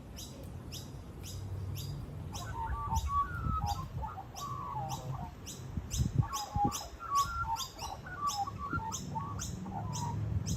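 Birds chirping: a steady series of short, high chirps at about two to three a second, joined about two seconds in by lower warbling calls.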